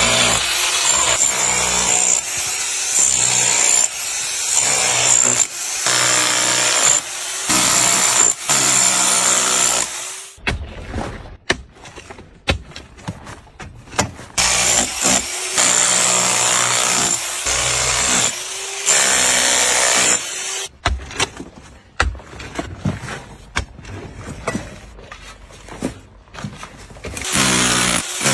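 Power tools working on metal: a rasping, grinding noise with a thin high whine that comes and goes, broken by sharp knocks. The sound changes abruptly several times, as if cut between clips.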